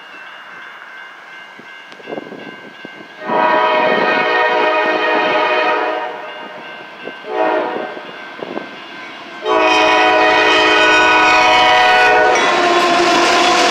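Air horn of the lead CSX CW44AH (GE ES44AH) diesel locomotive sounding the grade-crossing signal as the freight train comes in: a long blast about three seconds in, a short one, then a long blast held to the end. As the locomotive reaches the crossing the horn drops in pitch, and the roar of the engine and the train rises under it.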